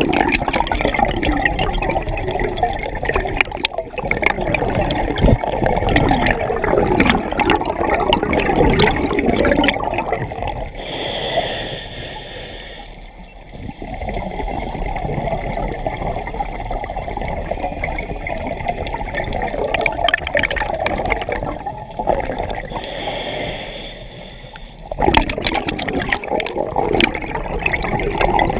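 A scuba diver breathing through a regulator, heard underwater right at the camera: long exhalations send bubbles rushing and gurgling past the housing. Twice the bubbling drops for a couple of seconds while the diver breathes in through the regulator, a thin hiss.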